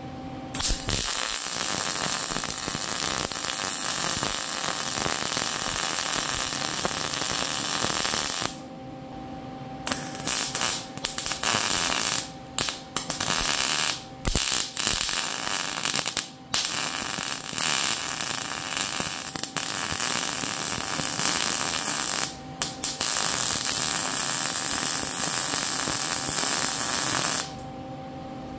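MIG welder arc crackling with a steady sizzle, the "bacon" sound of a well-set short-circuit arc, as beads are laid on a steel tube frame. The arc runs in several beads with brief stops, the longest pause about a third of the way in and a few quick breaks in the middle.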